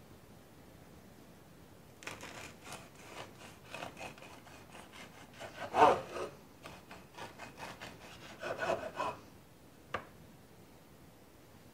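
Knife sawing through the crust of a freshly baked loaf on a wooden cutting board, in quick back-and-forth strokes. The strokes start about two seconds in and are loudest in the middle. A single sharp tap follows near the end.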